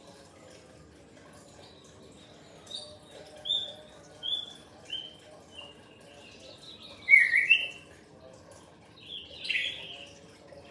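Pet songbird singing: a run of short whistled notes, each a little lower than the last, followed by two louder, busier phrases.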